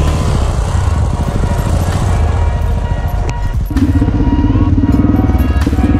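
Dirt bike engine running under way, getting louder about four seconds in as the engine works harder.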